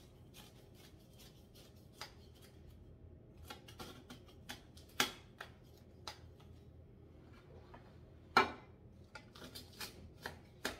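Knife cutting through the crisp, flaky phyllo crust of a baked cheese pie (zelnik) in an enamelled pan: scattered dry crackles and crunches, with two sharper ones about five and eight seconds in.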